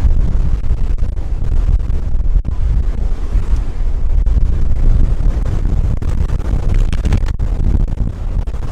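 Loud, steady low rumble of jet engines, heard through heavy wind buffeting on the microphone; this is the Antonov An-225 Mriya's six turbofans at takeoff power.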